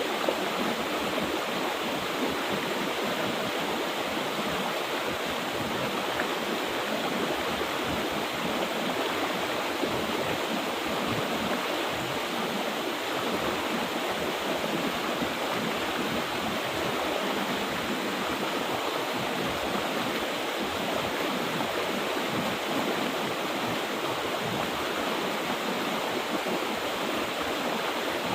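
Mountain river water flowing, a steady, even rush with no breaks.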